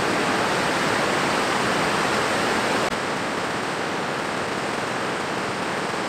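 Steady rush of a small waterfall cascading into a rocky pool, a little quieter from about three seconds in.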